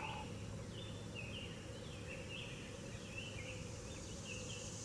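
Outdoor ambience: short high-pitched chirps repeating two to three times a second over steady low background noise.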